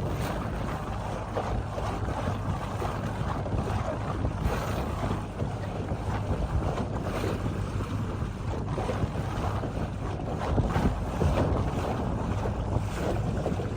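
Wind buffeting the microphone on a boat at sea, over a steady low drone from the boat's motor.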